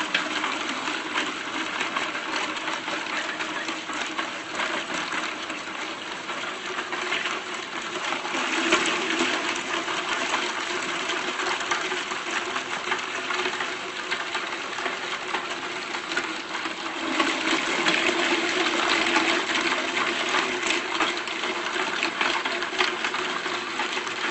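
Industrial electric meat grinder running with a steady motor hum while it grinds whole chicken, bones and all. The crunching and rattling grow louder twice, about 9 seconds in and again from about 17 seconds.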